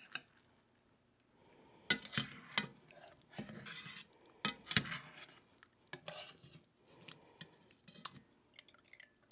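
A wire spider skimmer clinking and scraping against a cast iron Dutch oven as cooked vegetables are scooped out of the sauce: several sharp clinks with softer scraping between them.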